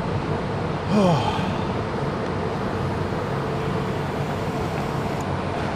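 Steady background noise with a low hum throughout, and one short voice-like sound about a second in.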